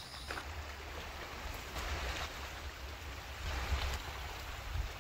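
Seaside wind and surf: wind rumbling unevenly on the microphone over a steady wash of sea noise that swells twice, about two seconds in and again near the end.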